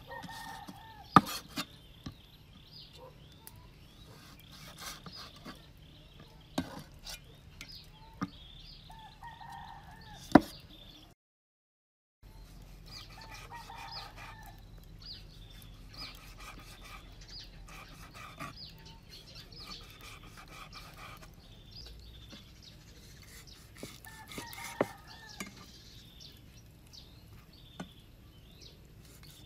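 Large knife cutting raw pork on a wooden chopping board, the blade now and then knocking sharply on the wood, with chickens clucking and crowing in the background.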